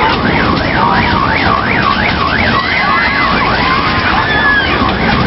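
Electronic siren warbling rapidly up and down, about three sweeps a second, for roughly three seconds, over a steady wash of fairground noise.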